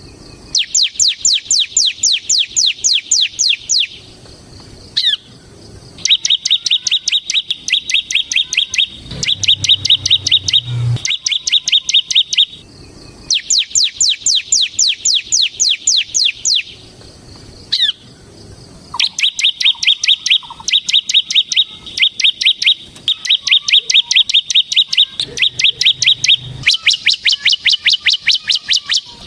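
Ciblek semi (bar-winged prinia) singing its fast 'ngebren' song. Each phrase is a rapid run of sharp, high chirps lasting a few seconds, with short pauses between phrases.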